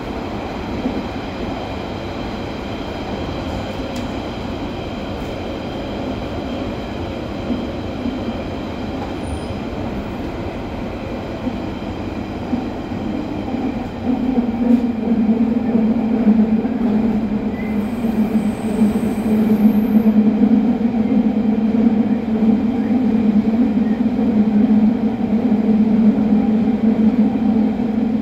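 Central line 1992 Stock tube train running between stations, heard from inside the carriage: steady running noise with faint high whine tones. About halfway through it grows louder, with a deeper rumble.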